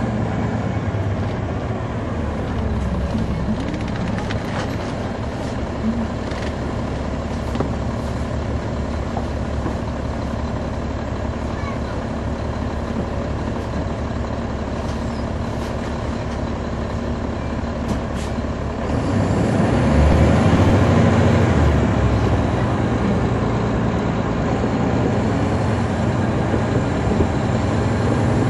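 Caterpillar C13 ACERT diesel engine of a 2009 NABI 40-SFW transit bus, heard from the rear seat inside the bus. It runs at a steady low hum with a few clicks and rattles, then gets louder and deeper about two-thirds of the way in as it pulls harder.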